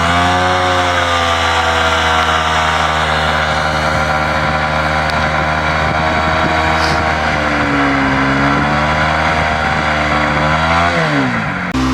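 Yamaha MT-15's single-cylinder engine held at high revs through a burnout on the worn-out rear tyre. It revs up at the start, holds a steady high note for about ten seconds, then the revs drop away near the end.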